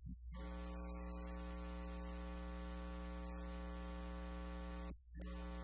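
Electrical mains buzz on the audio feed: a steady low hum with many overtones. It cuts in just after the start and drops out briefly about five seconds in.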